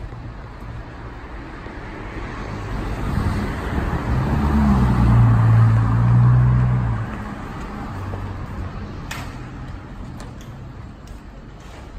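A motor vehicle passing close by on a city street, its engine and tyres growing louder to a peak about five seconds in, the engine note rising briefly, then fading away over the following seconds against steady traffic noise.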